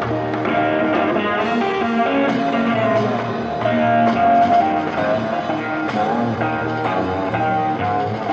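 Live rock band: electric guitar playing held lead notes over a bass line and drums.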